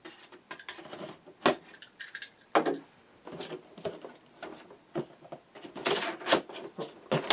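Cardboard retail box being opened and handled: a box cutter slitting its seal, sharp knocks as the box is shifted on the table, and cardboard scraping and rustling as the end flap is pulled open.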